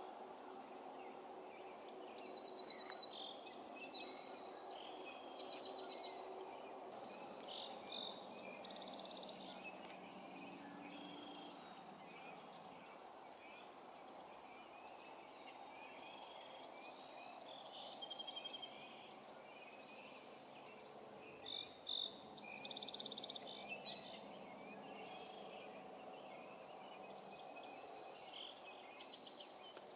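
Several birds singing in a dawn chorus: scattered short chirps and fast trills, with a loud rapid trill a couple of seconds in and another burst of song about two-thirds of the way through. A steady faint low hum runs underneath.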